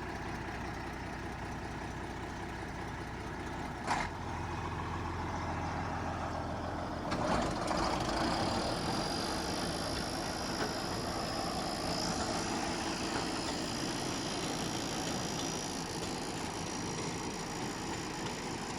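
Tractor engine running steadily, with a short knock about four seconds in; about seven seconds in the running grows louder and fuller.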